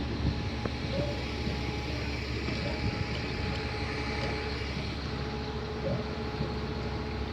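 Car engine idling steadily, a low hum with a few steady tones over a continuous wash of noise.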